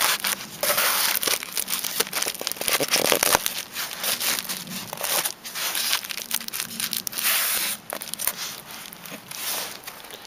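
Crinkling and rustling of plastic sheeting and a polystyrene insulation board being pressed and shifted by a gloved hand on top of a wooden beehive, with small irregular scrapes and clicks.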